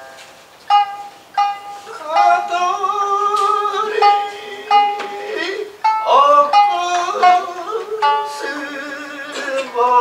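Kouta, a short Japanese song with shamisen: a few single shamisen notes are plucked. Then, from about two seconds in, a voice sings long, wavering held notes that slide between pitches, with further sharp shamisen plucks over it.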